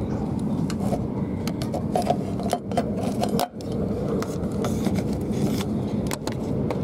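Inside a Southern Class 377 Electrostar electric train running at speed: a steady low rumble of running noise, with scattered clicks, scrapes and rubs from the handheld phone being moved about.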